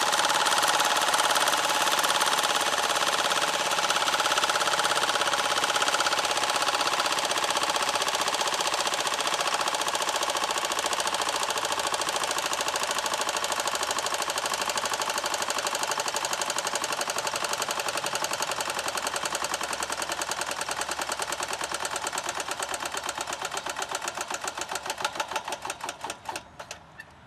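Philips MP1002CA paraffin-heated Stirling engine generating set running with a fast, even mechanical beat. Over the last few seconds it slows and fades, the beats becoming separate pulses as the engine runs down to a stop.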